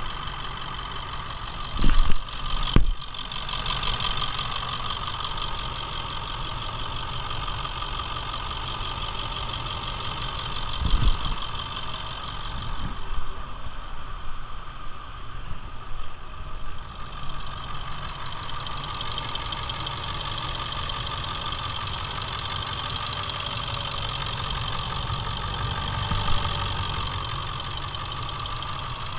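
International T444E V8 turbo diesel idling steadily in the truck, a low rumble with a steady high whine over it. A couple of sharp thumps come about two and three seconds in, and a smaller one near the middle.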